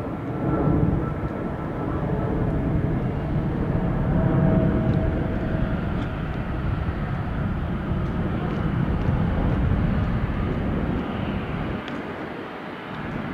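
Boeing 737-300's CFM56-3 turbofan engines running at low taxi thrust while the jet lines up on the runway: a steady rumble with a faint whine, swelling slightly about four seconds in and easing near the end.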